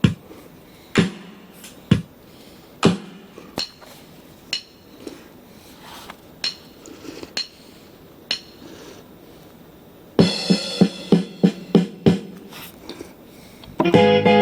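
Casio LK-280 electronic keyboard playing single percussive struck notes about once a second, then a quick run of notes about ten seconds in, and a sustained chord near the end.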